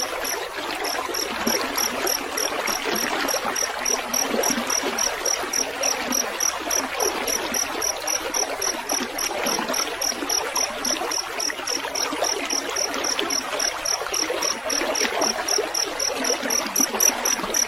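Field cricket chirping in an even, steady rhythm of about three chirps a second, over a continuous trickle of running water.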